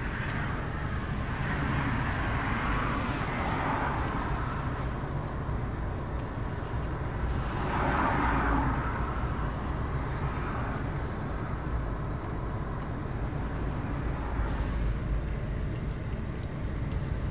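Background vehicle noise: a steady low rumble with a few swells, like traffic passing, about two to four, eight and fifteen seconds in.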